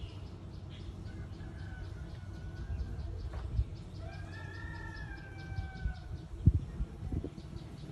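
A rooster crowing once, one long call of about two seconds that sags slightly at the end, over a steady low rumble.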